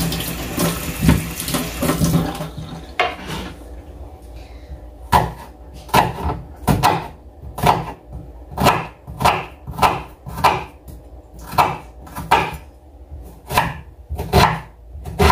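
Kitchen tap running as a peeled onion is rinsed under it, stopping after about two seconds. Then a knife dices the onion on a wooden cutting board in steady chops, about two a second.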